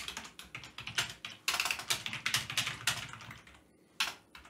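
Typing on a computer keyboard: a few separate keystrokes, then a fast run of them in the middle, and a single key near the end.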